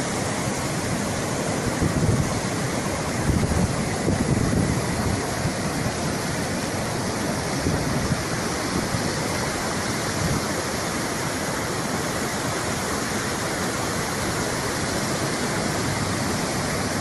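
Floodwater of a swollen river rushing past in turbulent waves: a steady, dense rush of water noise, a little louder a couple of seconds in.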